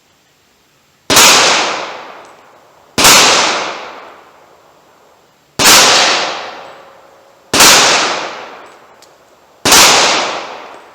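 Five shots from a Glock 41 .45 ACP pistol, fired at a steady pace about two seconds apart, each crack trailing off in a long echo.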